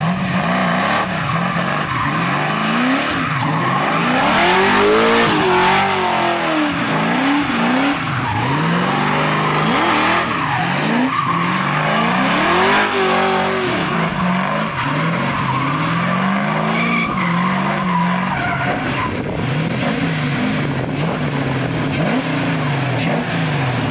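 Square-body Chevy C10 race truck's LS-swapped V8 revving up and down over and over while its rear tires squeal continuously, spinning donuts.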